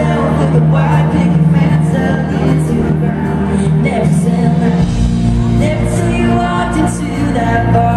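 Live country song from a guitar duo: strummed acoustic guitar and electric guitar with a woman singing, amplified in a concert hall. The bass moves to a new chord about five seconds in.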